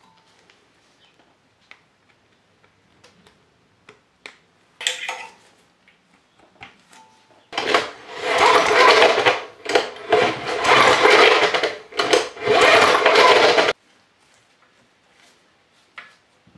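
Single-cylinder tiller engine being cranked over in four loud whirring spells of about a second and a half each, in the second half. It is being turned over to check for spark.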